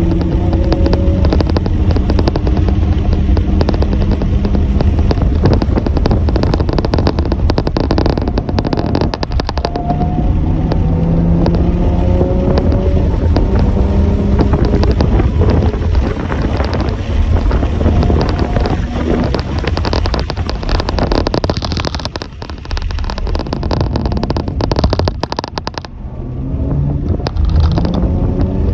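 Motor vehicle engines accelerating, their pitch climbing in repeated rising sweeps, over a heavy low rumble. It eases off briefly twice near the end.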